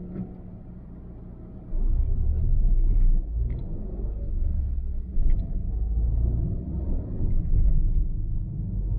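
Low, uneven rumble of a car driving on a highway, heard from on board. It jumps suddenly louder about two seconds in and stays loud.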